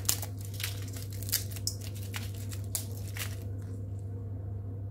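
Dried Kashmiri chilies crackling and tearing as they are broken apart by hand: a quick run of brittle crackles that dies away after about three seconds. A steady low hum runs beneath.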